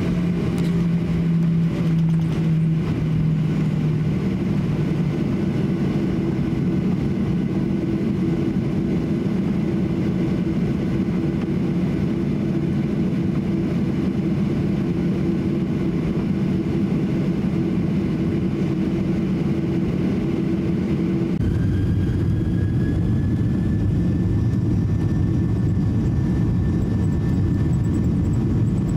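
Boeing 737-800's CFM56 engines heard from inside the cabin, running steadily at taxi power. About two-thirds of the way in, the sound changes to a deeper rumble with a high whine that slowly rises as the engines spool up for takeoff.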